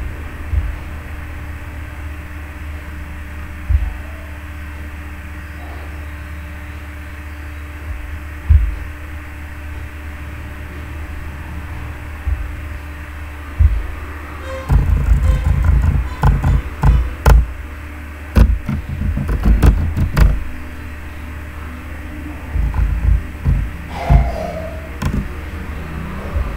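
Computer keyboard and mouse clicks: a few single knocks, then quick runs of keystrokes about halfway through and again near the end, over a steady low hum.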